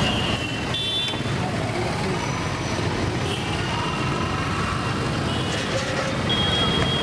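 Roadside street ambience: the steady rumble of passing traffic.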